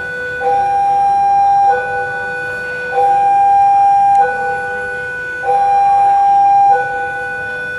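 Railway level-crossing warning alarm sounding its two-tone signal: a higher and a lower tone take turns, each held about a second, over and over. It signals that a train is approaching and the crossing barriers are down.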